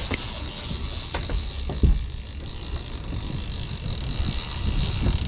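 Wind buffeting the microphone over the steady noise of a boat under way at trolling speed, with a few soft knocks.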